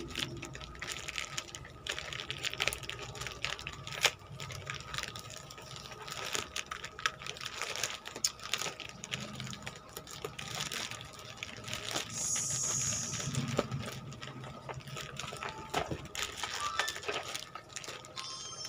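Plastic courier mailer bag rustling and crinkling in a continuous run of irregular crackles as hands pull and tear it open.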